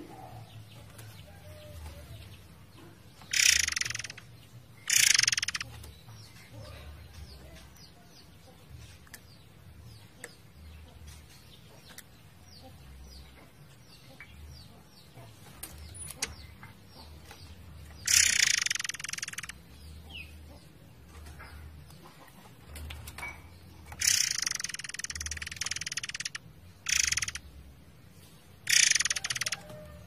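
A murai air songbird singing in loud bursts of rapid-fire song, each one to two seconds long, about six phrases with quiet gaps between them. The longest run comes late, lasting about two seconds.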